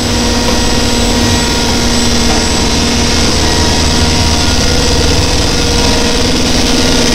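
Oil tanker engine-room machinery running: a loud, unbroken din with a few steady humming tones over a wide noise, from the ship's running engines, pumps and centrifugal oil purifiers.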